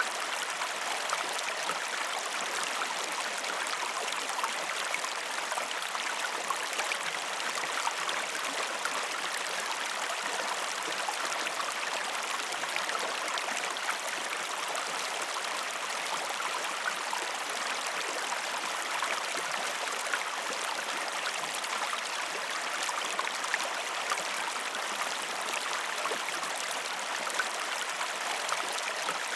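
Waterfall: falling water rushing and splashing in a steady, even hiss with no deep rumble, dotted with small splashes.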